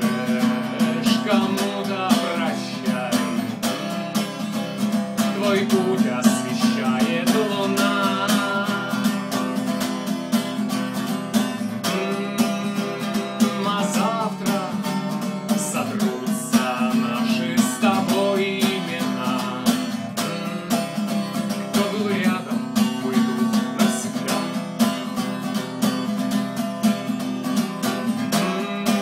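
Acoustic guitar strummed in a steady rhythm, with a man singing along over it.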